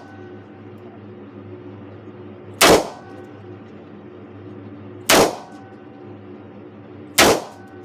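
Taurus RT 410 'The Judge' revolver firing .410 shotshells loaded with T lead shot: three loud shots, the second about two and a half seconds after the first and the third about two seconds after that, each ringing off briefly.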